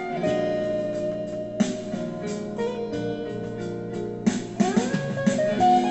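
Electric guitar playing an improvised lead over a keyboard backing track, with held notes and a rising slide about four and a half seconds in, recorded through a phone microphone.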